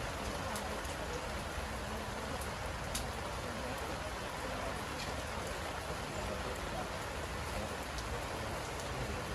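Steady rain falling: an even hiss with a few sharper drop ticks here and there.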